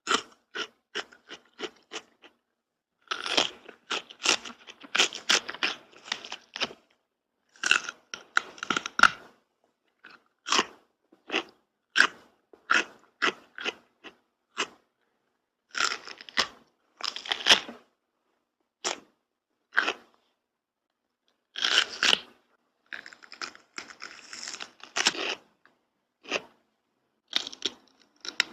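Crunchy food being bitten and chewed up close, in clusters of sharp crunches with short pauses between bites.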